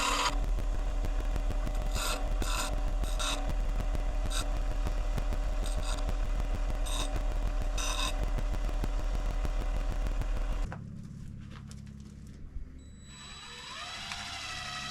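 Power drill boring into wood, running steadily with occasional sharper grinding bursts. It stops abruptly about two-thirds of the way through, leaving a quieter stretch with a rising whine near the end.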